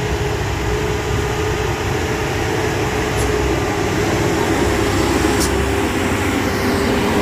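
A heavy truck's engine running steadily: a low rumble with a steady hum held throughout.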